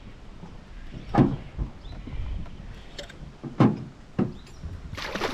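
Several dull knocks and thumps on a small fishing boat, with a short rushing noise starting near the end.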